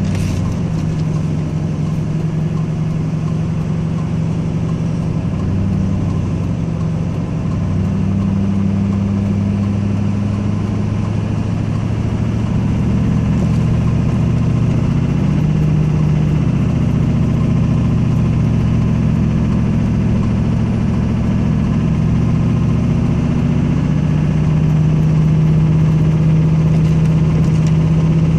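Duramax V8 turbodiesel pickup engine heard from inside the cab, working under steady load as it tows a semi up a steep grade: a steady low drone whose pitch shifts a few times and grows slightly louder near the end.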